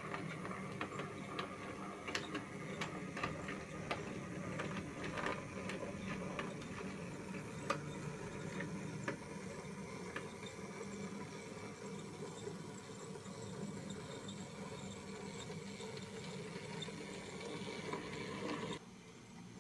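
H0e scale model of a C50 narrow-gauge locomotive running on model track: a steady whirr of its small electric motor and gearing, with irregular light clicks of the wheels over the rails, more of them in the first half. The sound cuts off suddenly shortly before the end.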